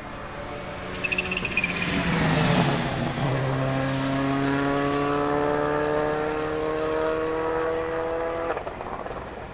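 Subaru Impreza S9 WRC rally car's turbocharged flat-four engine driving past at speed, its pitch dropping as it goes by. It then pulls hard with the revs climbing steadily for about five seconds before cutting off suddenly near the end as the driver lifts or changes gear.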